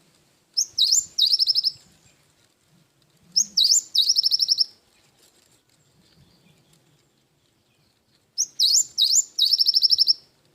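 Cinereous tit (gelatik batu) singing three high phrases, about half a second in, about three and a half seconds in, and near the end. Each phrase opens with a couple of quick upward-sweeping notes and runs into a fast, even trill of repeated notes lasting about a second.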